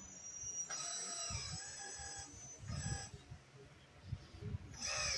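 Scale RC hydraulic excavator's pump running with a pitched whine while the boom, arm and bucket are moved. It starts about a second in and comes and goes in spurts as the controls are worked.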